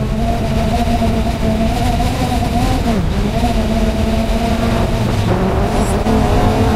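Quadcopter drone's motors and propellers humming steadily, the pitch dipping briefly about three seconds in and then coming back.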